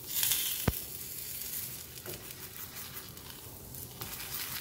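Thin maida-batter crepe sizzling in an oiled non-stick pan, nearly cooked now that its raw white colour has gone. The sizzle is loudest at first, and there is one sharp tap less than a second in.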